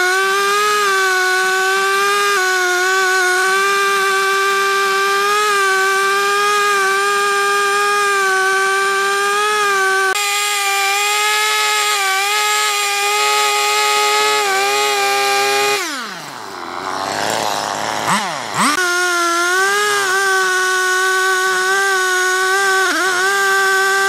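Two-stroke Husqvarna chainsaw running at high revs with a steady, high-pitched whine. About two-thirds of the way through the revs drop toward idle and climb back up, with a short dip near the end.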